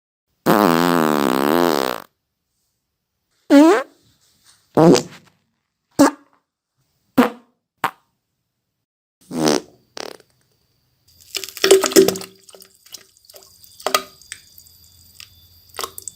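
A string of separate human farts. The first, starting about half a second in, is a long buzzing one of about a second and a half. Short pitched ones follow roughly every second, then a run of sputtering, crackly farts from about eleven seconds on.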